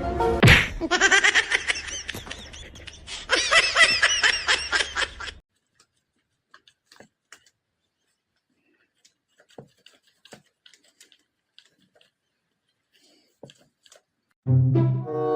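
A person laughing hard in quick repeated bursts for about five seconds, then near silence with a few faint clicks, and music starting near the end.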